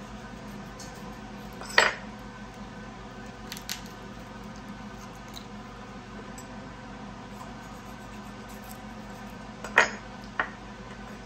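Raw chicken being jointed with a paring knife on a wooden cutting board: two sharp knocks of the knife on the board, about two seconds in and near the end, with a couple of lighter taps, over a steady hum.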